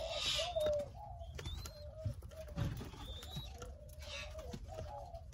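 Doves cooing over and over, a steady string of short low coos, with a few brief rustling noises in between.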